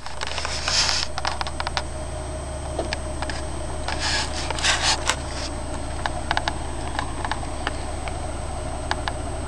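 Four-wheel drive crawling slowly over a dirt and rock mound: a steady low engine hum, with scattered sharp clicks and a few short scraping bursts about a second in and again around four to five seconds.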